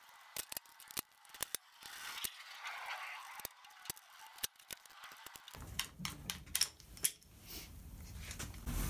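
Light, irregular metallic clicks and clinks of a socket ratchet and loose steel parts as the gear shift linkage is unbolted and lifted off a Harley-Davidson Sportster engine.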